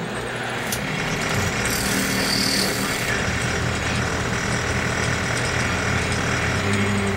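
Small metal lathe running, its four-jaw chuck spinning a steel carburettor flange while a boring tool opens up the bore. A steady motor and gear hum with cutting noise, and a brief high-pitched cutting sound about two seconds in.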